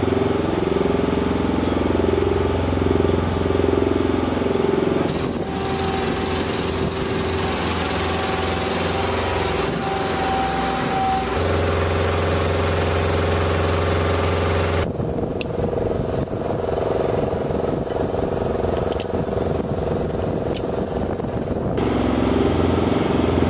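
Engine of a bomb-loading lift truck running steadily. Its pitch and level change abruptly several times.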